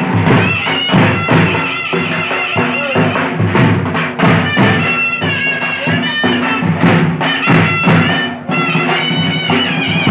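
Several dhak drums beaten together in a steady rhythm, with a reedy wind instrument playing a wavering melody over them.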